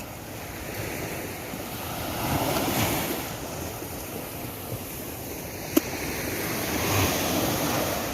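Small waves washing on a beach, the surf swelling twice, with wind on the microphone and one sharp click about three-quarters of the way through.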